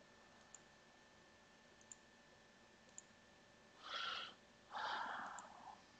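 Three faint computer mouse clicks about a second apart, then two short breathy rushes of noise into a headset microphone, the second one longer.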